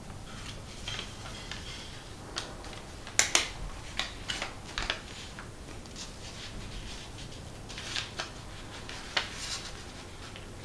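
Origami paper rustling and crackling as it is handled, folded and pressed into creases by hand: scattered sharp crackles, the loudest a little over three seconds in, with another cluster around eight to nine seconds.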